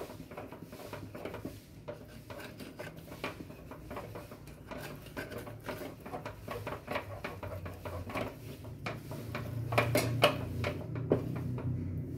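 Wooden paddle stirring thick rice-flour batter in a stainless steel pot, with repeated knocks and scrapes against the pot's sides. The flour is being worked into sugar syrup to make adhirasam dough. The knocks grow louder about ten seconds in.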